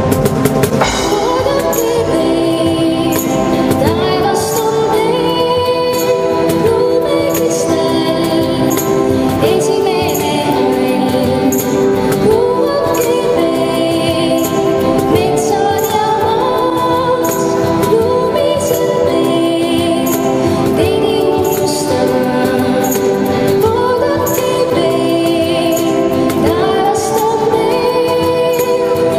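A young woman singing a melody, accompanied by an electric guitar and hand percussion that strikes a steady beat.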